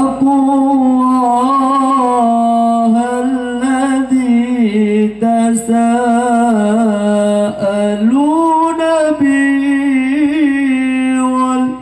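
A single voice reciting the Quran in the melodic tilawah style, holding long ornamented notes. It pauses briefly about five and eight seconds in, and its pitch steps up after the second pause.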